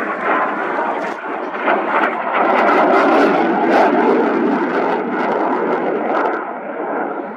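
Eurofighter Typhoon's twin EJ200 turbofans running in afterburner through a hard display turn. The jet noise builds about two seconds in, is loudest in the middle with a rough crackle, and then eases off.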